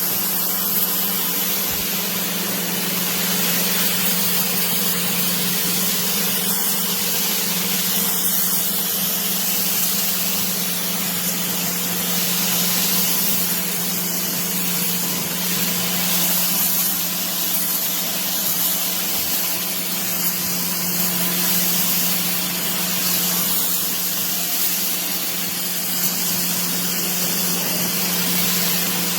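Bosch UniversalAquatak 135 electric pressure washer running and spraying: a steady hiss of water jet over the even hum of its motor and pump.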